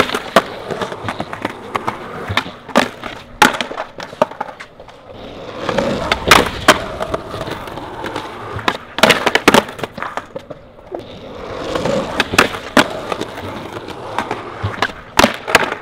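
Skateboard wheels rolling over rough concrete, swelling three times as the skater pushes in, each run ending in sharp cracks and clatter as the board pops, strikes the concrete curb ledge and slaps the ground. This is a run of repeated tries at a street trick.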